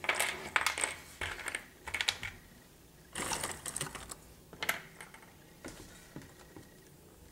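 Cardboard jigsaw puzzle pieces clattering and rustling as handfuls are scooped from the box and spread across a tabletop, in bursts of quick clicks, the last clatter about two-thirds through, then fainter.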